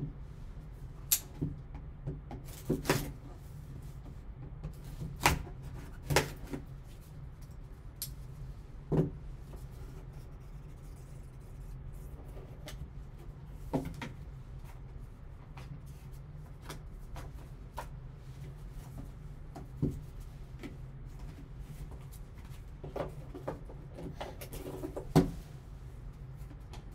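Cardboard card box being opened and handled with gloved hands: a dozen or so scattered sharp taps and knocks of box and packaging, over a steady low hum.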